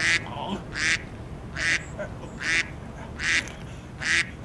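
A duck quacking in an even series, six quacks in just over four seconds.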